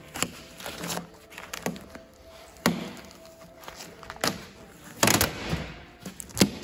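Sharp plastic knocks and clicks, irregularly spaced, with a denser rustling burst about five seconds in: tape and plastic trim being pulled off a crashed car's front bumper and fender.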